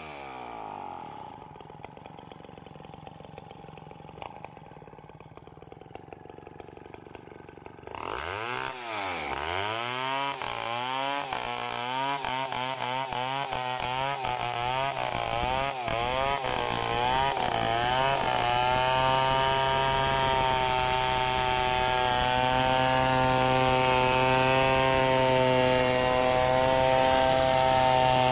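Large two-stroke chainsaw ripping a coconut log lengthwise. It is quieter for the first several seconds, then from about eight seconds in it gets louder with the revs surging up and down, and about eighteen seconds in it settles into a steady high-revving cut that keeps growing louder.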